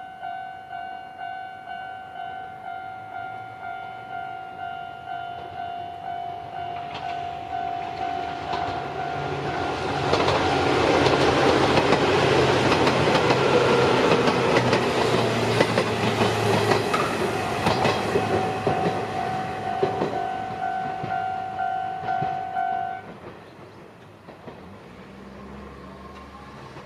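Japanese level-crossing alarm bell ringing in a steady two-tone pulse while an Izuhakone Railway electric train passes through the crossing. The train's run builds to a loud rush with wheels clacking over the rail joints, then fades, and the alarm stops about two-thirds of the way in.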